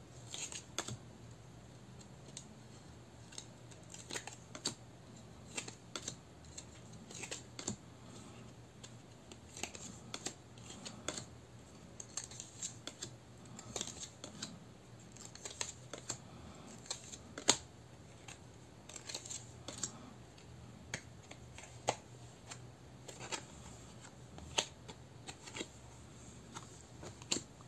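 New gilt-edged tarot cards being separated and laid down one at a time: a faint, irregular run of light card clicks and snaps.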